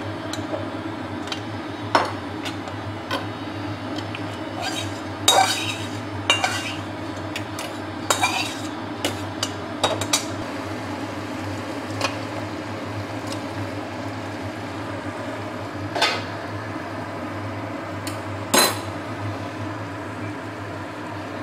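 Metal spatula scraping and clinking against a metal kadai, with scattered knocks of pots and lids being handled, over a steady low hum.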